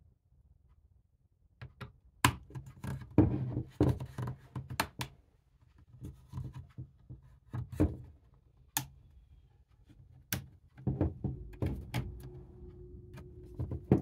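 Bottom cover of a Lenovo ThinkPad T14/P14s Gen 6 laptop being pried loose with a plastic pry tool: a string of sharp clicks and snaps as the cover's clips pop free, then rubbing and handling noise as the edge is worked near the end.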